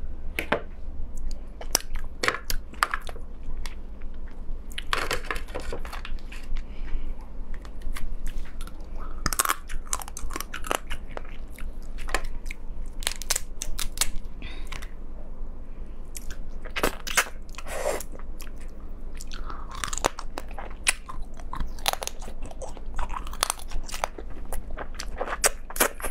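Close-miked eating of crab: shell and legs cracking and crunching as they are pulled apart and bitten, with chewing and sucking at the meat. Sharp cracks and clicks come irregularly throughout, with a few longer wet smears.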